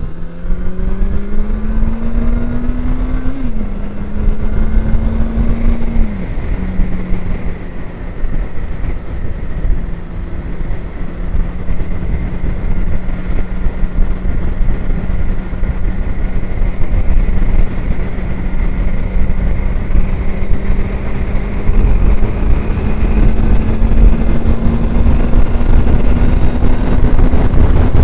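Honda Hornet 900 motorcycle's inline-four engine accelerating, its note rising and dropping back at two gear changes in the first six seconds, then running at a steady cruise that slowly rises. A constant rush of wind over the microphone runs beneath it.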